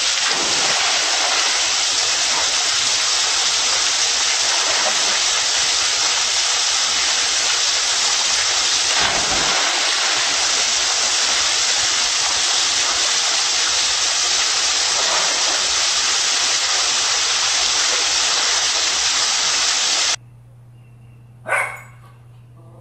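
Steady rush of water pouring down a pool waterslide and splashing into the pool, cutting off abruptly near the end. A sharp knock follows in a quiet room.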